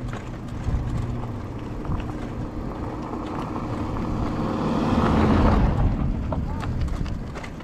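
A small van driving past on a gravel track, its engine and tyre noise rising to a peak about five seconds in and fading away. Under it, the steady rolling rumble of the bicycle on the gravel.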